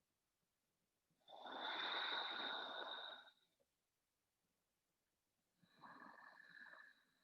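A person taking slow, deep breaths: a long, louder breath about a second in, lasting about two seconds, then a softer one near the end.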